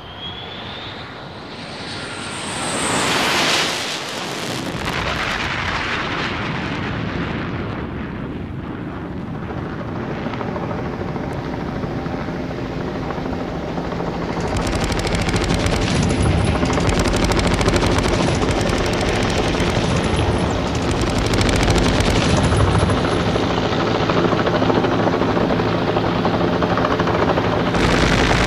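Aircraft sound effects: a rising whine that swells to a loud pass about three seconds in, then a steady aircraft engine drone that grows louder about halfway through.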